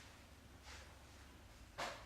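A 16-year-old Yorkshire terrier snoring faintly in its sleep: short breathy snores about once a second, the loudest one near the end.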